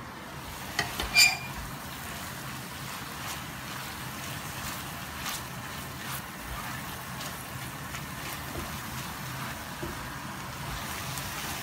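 Ground beef and vegetables sizzling steadily in a frying pan, with faint scattered crackles and a light metallic clink about a second in.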